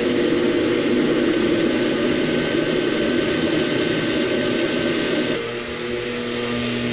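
Oster countertop blender running at speed, churning a litre of water with a spoonful of CMC thickener. The motor sound is steady and loud. About five seconds in, the churning noise eases and a steadier motor tone comes through.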